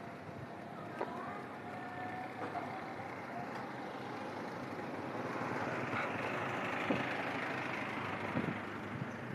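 Steady street noise with a motor vehicle running, louder in the second half.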